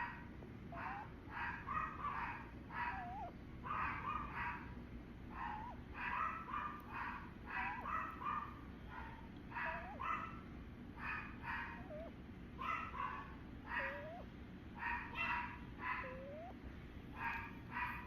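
An animal snoring in its sleep: clusters of short, rough snores on each breath, with a small squeaky whistle about every two seconds.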